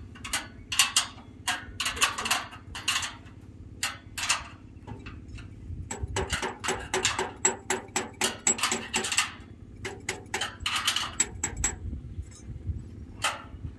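Irregular sharp metal clicks and clinks, with a faster run of clicks from about six to nine seconds in: a hand tool working the bolts of a steel solar-panel mounting frame.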